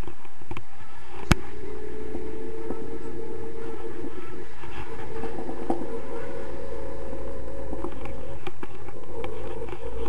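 Airflow of a paraglider in flight buffeting the camera microphone: a steady low rumble with a faint steady hum running through it, and one sharp click about a second in.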